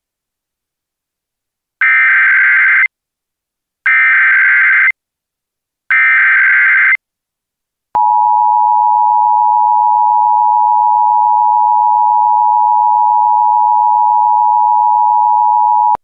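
Emergency Alert System broadcast header: three one-second bursts of SAME digital data tones about a second apart, then the EAS two-tone attention signal, a steady dual tone held for about eight seconds, marking the start of an emergency alert.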